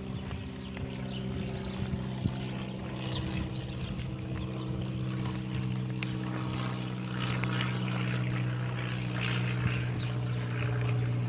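A steady engine drone holding one pitch, growing a little louder in the second half, with faint clicks and short high chirps over it.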